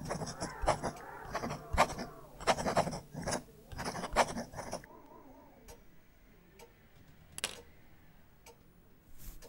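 Pen nib scratching rapidly across paper in quick strokes for about five seconds. Then it goes quieter, with a few sharp ticks roughly a second apart.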